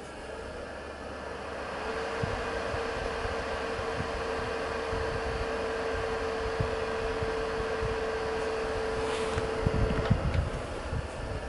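Dyson AM01 and AM06 bladeless fans running at low airflow (setting 04): a steady rush of air with a constant motor whine, building up over the first couple of seconds as they spin up. Near the end there are a few low knocks as hands handle the fans, and the whine cuts off as they are switched off.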